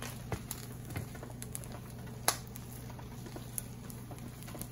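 Wooden spoon and metal spatula stirring hot, steaming rice in a pan: scattered light scrapes and clicks, with one sharper knock a little over two seconds in, over a steady low hum.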